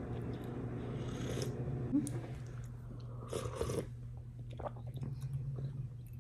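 A woman slurping soup from a ceramic soup spoon, one noisy slurp about three seconds in, over a steady low hum.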